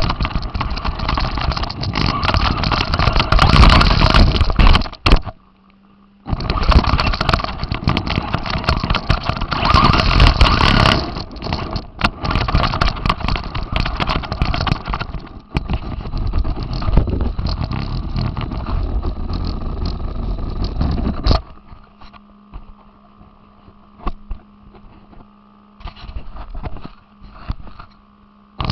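RC car heard from on board: loud, rattling drivetrain and tyre noise while it drives. The noise cuts out briefly about five seconds in, then drops near the end to a faint steady hum with scattered knocks.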